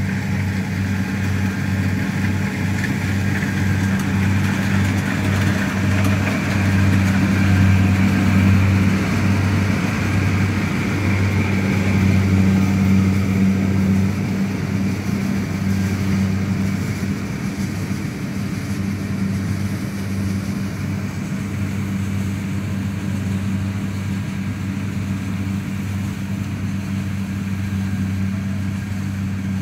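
Rice combine harvester's engine running steadily under load while cutting, a low even drone that swells slightly partway through and then eases off a little.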